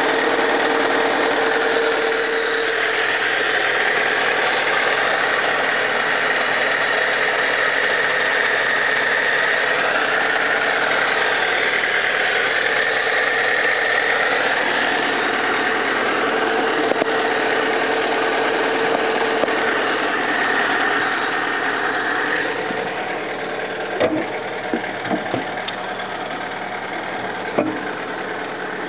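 2002 Fiat Seicento 1.1's four-cylinder engine idling steadily, which the owner finds a bit rough, for a reason he does not know. It gets a little quieter after about 22 seconds, and a few short knocks come near the end.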